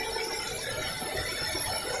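Large log band saw running, its blade giving a steady, high-pitched metallic ringing over the machine's running noise.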